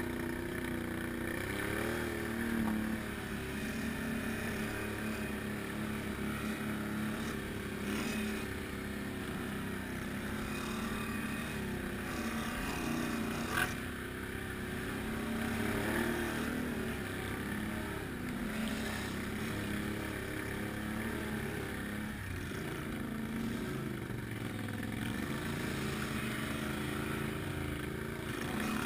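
Can-Am Outlander ATV's V-twin engine running as it is ridden over rough ground, its pitch rising and falling with the throttle. A single sharp knock about halfway through.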